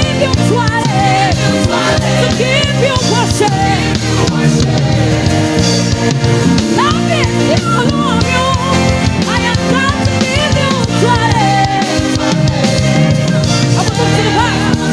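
Live gospel praise-and-worship band music with drums and bass, and a singing voice over it, loud and steady.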